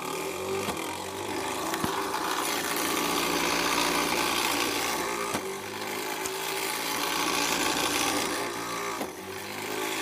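A robot flywheel shooter's motor spinning steadily at about 1100 RPM, a continuous mechanical whir. About five seconds in there is a short knock as a whiffle ball is fired through, and the whir dips briefly.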